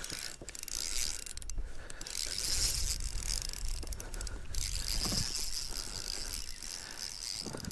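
Fishing reel being worked while a hooked fish is played, its mechanism whirring and clicking.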